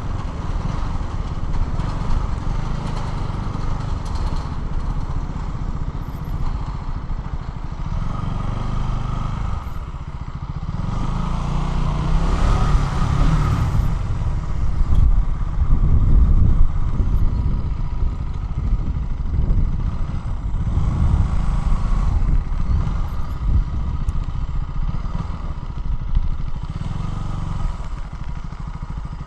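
KTM Duke 200's single-cylinder four-stroke engine running while riding, with the level rising and falling as it goes. There is a louder stretch about 11 seconds in, with a rush of noise for a few seconds.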